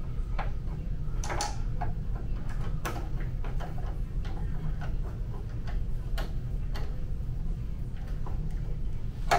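Hand-held T20 Torx screwdriver turning a screw into the plastic rear cover of an HP DesignJet T120 plotter: irregular small clicks and ticks as the bit turns and is reset in the screw head, over a steady low hum.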